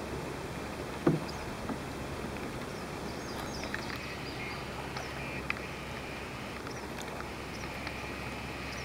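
Canoe and kayak paddling on a river: steady water and wind noise, with one loud knock about a second in and a few faint clicks and high chirps later.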